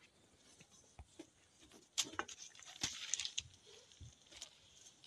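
Bamboo sticks and hands handling a cotton mattress: scattered light taps, clicks and rustles, the sharpest about two seconds in and again a second later.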